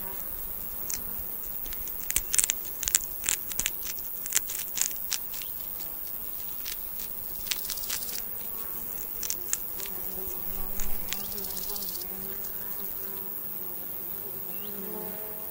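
Baby hedgehogs chewing hard food, a scatter of sharp crunching clicks coming in two bouts, the first about two seconds in and the second past the middle. A buzzing insect drones underneath, most clearly in the second half, over a steady high hiss.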